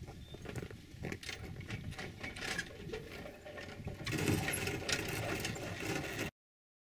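Boat trailer's hand winch being cranked, its ratchet clicking over and over as the jon boat on its ice sled is pulled up onto the trailer. About four seconds in it gets louder and rougher, then the sound cuts off suddenly.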